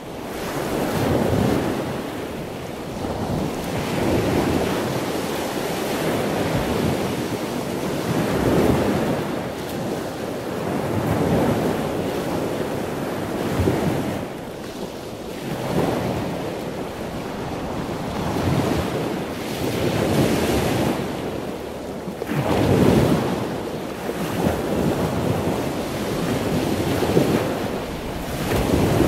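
Sea waves washing in with wind, swelling and easing about every two to three seconds.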